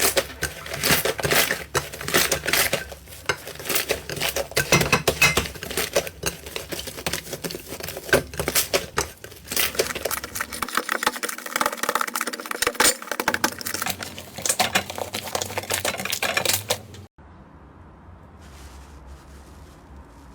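Slime being squeezed and worked by hand, giving a dense run of small crackles, clicks and pops. About three seconds before the end it cuts off abruptly to a much quieter hiss with a few faint soft sounds.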